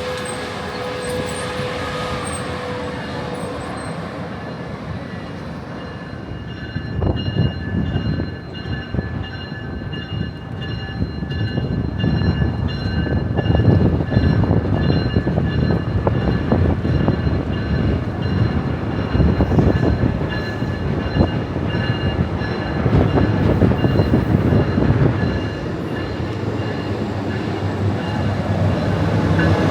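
Amtrak passenger train passing, its wheels clattering over the rails in a dense run of clicks from about seven seconds in until near the end, with steady high squealing tones above. A held tone fades out in the first few seconds.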